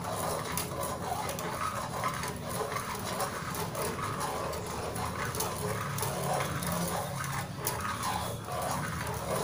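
A coil whisk stirring briskly in a metal saucepan of hot tea, a rhythmic swishing with the wire scraping against the pan, as agar-agar powder is whisked in to dissolve.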